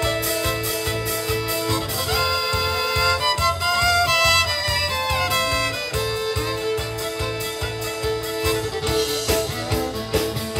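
Band music led by a fiddle playing long held melody notes, with guitar and a steady beat underneath.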